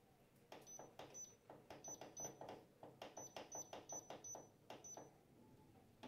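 Faint rapid ticking and soft knocking, about four a second, from a Whirlpool washing machine running its test cycle after repair, with water filling.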